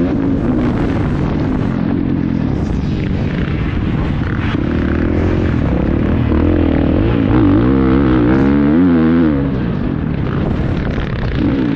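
450 four-stroke motocross bike engine heard from on board as it is ridden hard on a dirt track, revving up and down with the throttle, with a run of quick throttle blips about eight seconds in.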